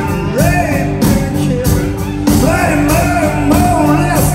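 Live rock band playing: a man singing over electric guitars, bass and a steady drum beat.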